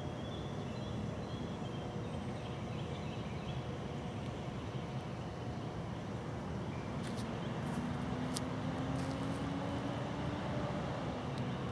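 Outdoor ambience: a steady low rumble, with a distant engine hum that rises slightly in pitch in the second half and a few faint clicks.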